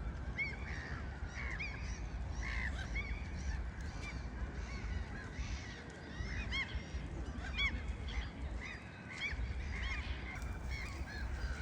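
A flock of birds calling without pause: many short, arched calls overlapping one another, over a low rumble.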